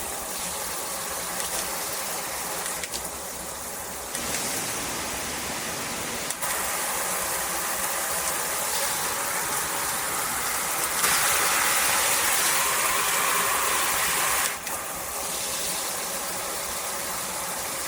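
Water spraying from a handheld filtered shower head. The spray sound shifts several times and is loudest and brightest from about 11 to 14 seconds in.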